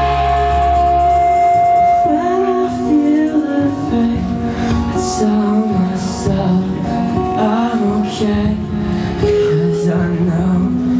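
Live band music: a male singer's voice over strummed acoustic guitar, with one long held note for about the first two seconds before the sung melody moves on.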